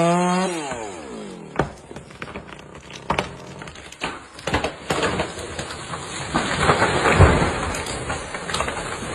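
Chainsaw engine dropping in pitch as the throttle is released, then a tree trunk cracking and splintering with scattered sharp snaps, building to a louder crash about seven seconds in.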